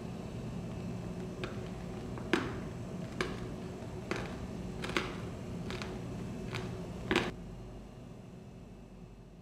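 A series of about eight sharp clicks, a little under a second apart, over a steady low room hum, which fades away near the end.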